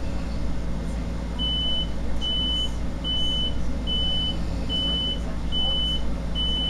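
A high electronic beep repeating about every 0.8 seconds, starting about a second and a half in, over the steady low rumble of a Long Island Rail Road train.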